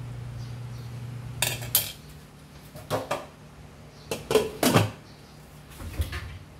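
A metal ladle clinking and knocking against a stainless cooking pan and being set down on a ceramic plate: several sharp clinks in short clusters. A low steady hum cuts off about two seconds in.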